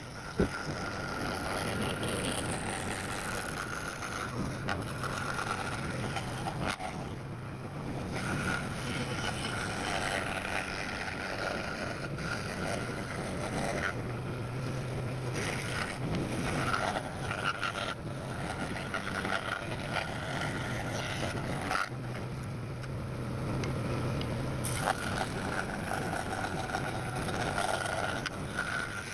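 Electric woodworking power tool running steadily, its motor hum coming and going in strength, with a few sharp clicks.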